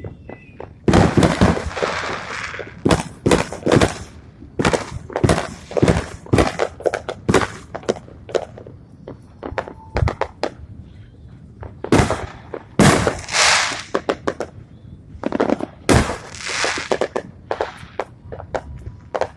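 Fireworks going off in a rapid series of sharp bangs, some followed by a crackling hiss, from about a second in.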